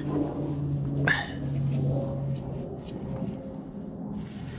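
Aircraft passing overhead: a steady low drone, with a short sharp sound about a second in.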